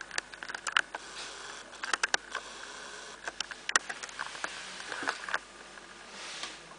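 Scattered light clicks and taps at irregular intervals, with faint hiss between them.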